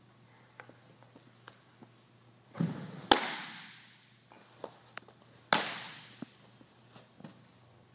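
A pitched baseball pops sharply into a catcher's mitt about three seconds in, just after a brief scuff of the delivery, and the pop echoes on through the large metal-walled hall. A second sharp pop with the same long echo follows about two and a half seconds later.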